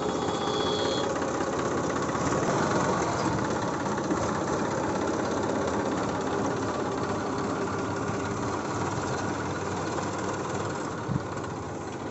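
New Holland 4510 tractor's 2300 cc diesel engine running steadily at low revs as the tractor is driven slowly.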